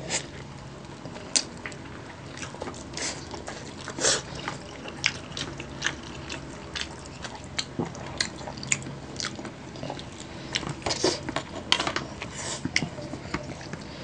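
Close-up eating sounds: biting into and chewing sauce-covered fried chicken, with many short clicks and crackles from the mouth scattered unevenly throughout.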